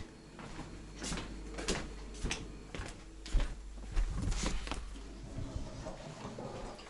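A handful of light, irregular knocks and clunks over a low rumble.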